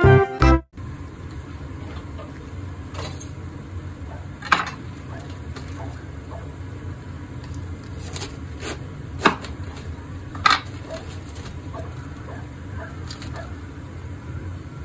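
A kitchen knife cuts through a head of spring cabbage on a wooden cutting board, giving a scatter of short, crisp cracks over a steady low background hum. A short music jingle ends in the first second.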